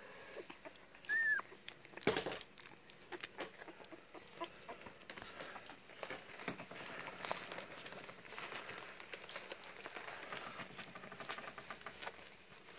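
Newborn Staffordshire bull terrier puppies squeaking in the litter: one short high squeal about a second in, with soft rustling and clicking as they shuffle against each other. A sharp knock about two seconds in.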